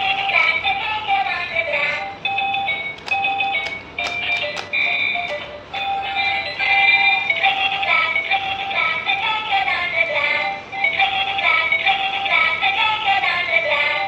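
Electronic music with a synthetic singing voice carrying a melody, with a few faint clicks mixed in.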